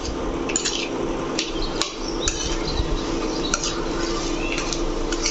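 Steel spoon scraping and clinking against a stainless steel kadai as boiled, mashed potatoes are stirred, in irregular knocks about every half second to a second. Under it runs the steady hum of an induction cooktop.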